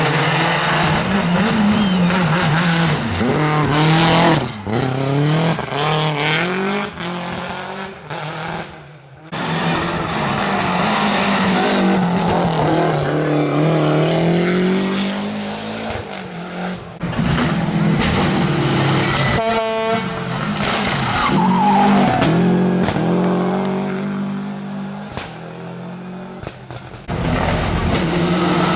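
Rally car engines revving hard, pitch rising and falling through gear changes, in several runs cut one after another, with some tyre squeal. A short rapid crackle of pops comes about two-thirds of the way in.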